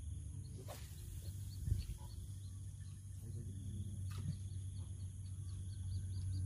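Faint outdoor ambience: a steady low rumble under a run of rapid, high-pitched chirps repeating several times a second. Two brief sharp clicks come about a second in and again about four seconds in.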